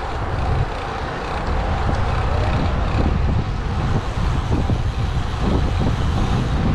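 Wind buffeting the microphone of a camera carried on a moving bicycle, a steady, uneven rumbling noise with road noise mixed in.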